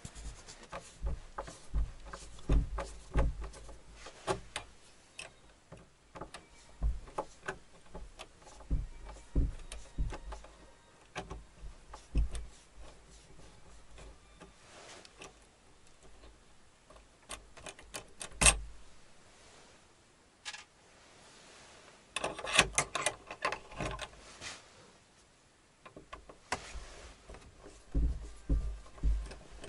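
A screwdriver backing the screws out of a steel barrel bolt on a wooden door: irregular small metallic clicks and scrapes, with one sharper click past the middle and denser runs of clicking later on.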